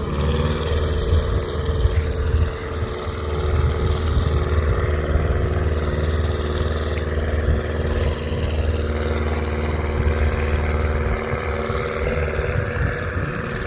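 Tractor engine running steadily under load.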